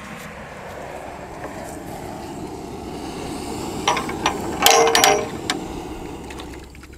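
A pan of sugar syrup being taken off the heat: metal clanks and a short ring about four to five seconds in, over a steady low hiss that fades near the end.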